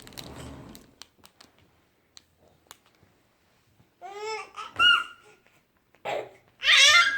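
A baby clearing his throat with a short raspy grunt, then after a pause, high-pitched babbling and squealing, laugh-like sounds from about four seconds in, getting louder near the end.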